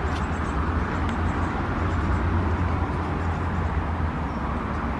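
Steady low rumble of motor traffic, with no single event standing out.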